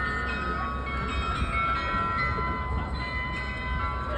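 The bells of the Munich New Town Hall Glockenspiel ringing a tune, several notes sounding and ringing on together, over a low steady rumble.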